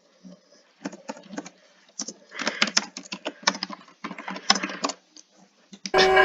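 Irregular clusters of small clicks and taps. Near the end, a steady multi-tone emergency alert alarm starts suddenly.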